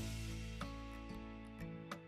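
Background music: a soft piece with plucked, guitar-like notes sustained and changing a few times.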